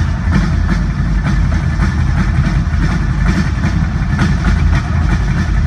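Live rock drum solo on a large double-bass-drum kit: fast, unbroken drumming led by heavy bass drum strokes, with cymbals ringing above.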